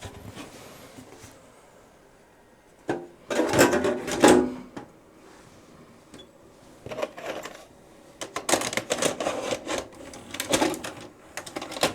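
Bursts of mechanical clattering and clicking from a Toshiba RDXV50KF DVD/VHS combo recorder as it is closed up and tried again. The loudest bursts come about three to five seconds in and again from about eight to eleven seconds in.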